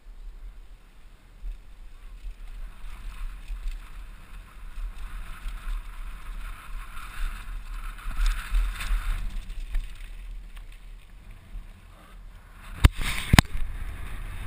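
Wind rumbling on a helmet camera's microphone during a mountain-bike descent on a dirt trail, with rolling noise that swells for a few seconds mid-way. Near the end come two sharp knocks about half a second apart.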